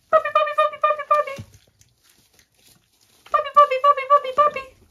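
A woman's high sing-song feeding call, 'puppy, puppy, puppy', given twice, each a quick run of syllables on one high pitch. It is a recall call made as the puppies are given their food.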